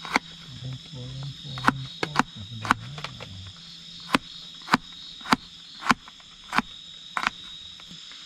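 Kitchen knife chopping shallots on a plastic cutting board: about a dozen sharp taps, roughly one every half second, stopping about a second before the end. Steady high insect chirring underneath throughout.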